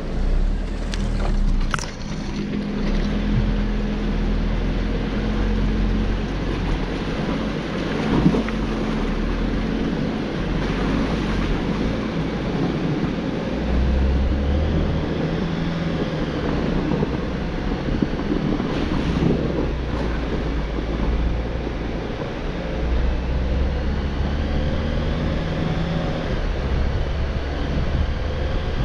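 4x4 driving slowly up a wet gravel trail: the engine runs with a steady low rumble over tyre and wind noise on the hood-mounted microphone. A sharp knock comes about eight seconds in.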